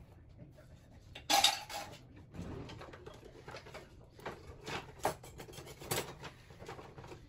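Kitchen clatter of cookware and utensils. A loud rattle comes about a second in, then a run of light clinks and knocks.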